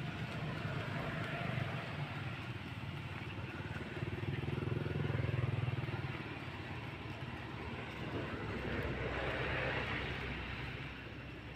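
A steady low engine rumble, growing louder about four seconds in and easing off near the end.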